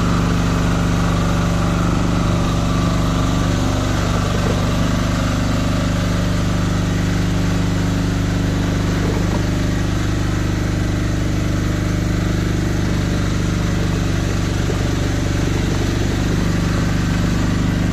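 Engine of the boom-deployment power pack running steadily at a constant pitch while the inflatable oil-spill boom is paid out from its powered reel.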